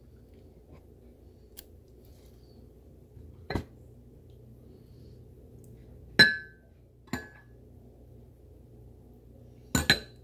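Scattered clinks and taps on a dinner plate as seafood is handled by hand: four or five sharp hits, the loudest about six seconds in, ringing briefly, and a quick double hit near the end. A low steady room hum runs under them.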